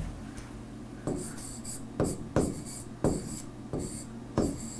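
Stylus writing on a tablet screen: a string of short taps and scratchy strokes, one roughly every half second to a second, as a word is handwritten.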